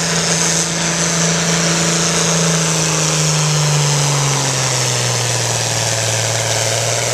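John Deere diesel tractor engine running hard under the load of a pulling sled; its steady pitch drops about halfway through and holds lower as the weight of the sled pulls the engine down near the end of the pull.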